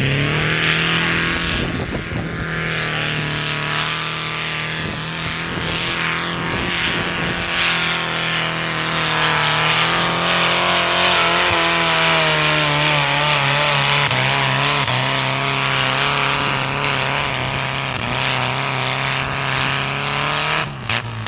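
Modified garden-tractor pulling engine running at high revs under load while dragging a weight-transfer sled. It revs up at the start, holds a steady high pitch, drops a little about halfway as it bogs under the sled's load, and winds down near the end as the pull finishes.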